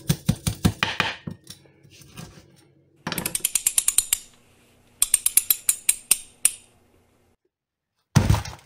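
A knife saws through the dry crust of a smoked fish in quick, rasping strokes. Then come two runs of fast, bright clicking, like a ratchet, from a logo sound effect, and a short loud hit near the end.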